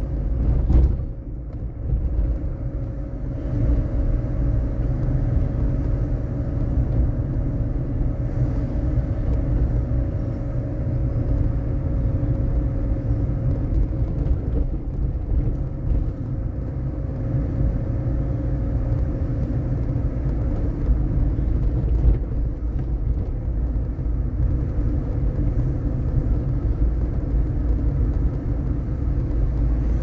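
Car driving slowly along a town street, heard from inside the cabin: a steady low rumble of engine and tyres, with a faint steady hum that fades out about two-thirds of the way through.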